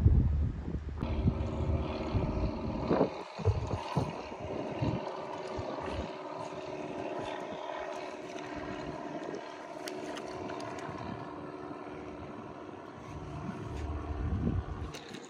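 Wind buffeting the microphone for about a second, then a steady motor drone with several held pitches.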